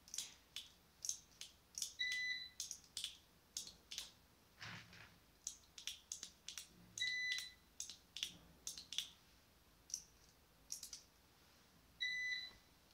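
Irregular plastic clicks and rattles of small trigger switches being handled, with a short electronic beep repeating three times, about every five seconds.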